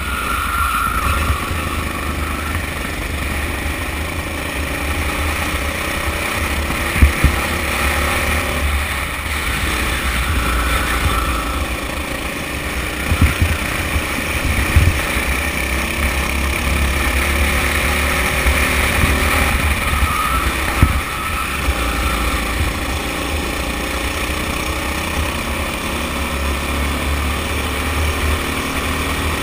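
Sodi rental kart's engine running hard on track, its pitch rising and falling as the kart accelerates out of corners and slows into them, over a steady rush of wind and road noise. A few sharp knocks stand out, the loudest about seven seconds in.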